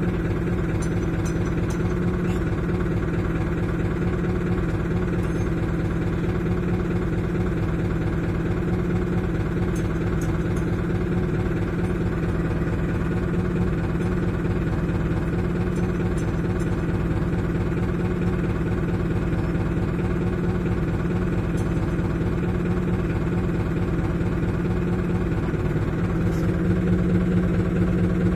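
Mobile crane's diesel engine idling steadily, heard from inside the cab. Near the end its note shifts and it grows a little louder.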